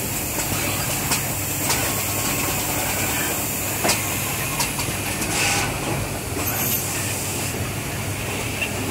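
Automatic LED die bonder running: a steady machine hum and hiss with occasional sharp clicks from its moving mechanisms.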